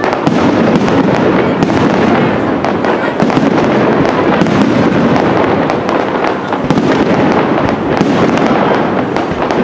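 Aerial fireworks display going off continuously: a dense, unbroken crackle and rumble of many shell bursts, with sharp cracks throughout.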